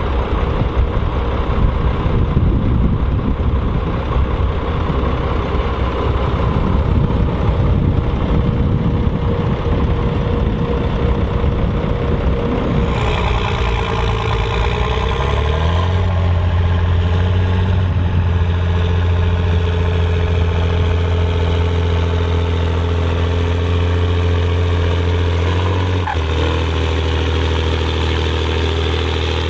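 Volvo BM 814 tractor's diesel engine working under load while pulling a six-furrow plough, rough and uneven at first. About halfway through it settles into a steady, even hum, stepping slightly in pitch near the end.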